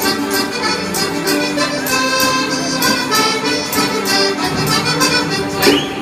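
Organetto (Italian diatonic button accordion) playing a traditional Ciociarian folk dance tune, with a regular beat of about two strokes a second. A short rising sound comes near the end.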